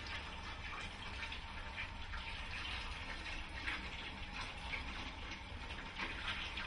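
A steady rushing noise, mostly in the upper middle range, with a low hum beneath it.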